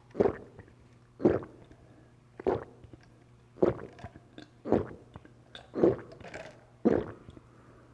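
A person gulping an iced drink close to the microphone, seven swallows at about one a second.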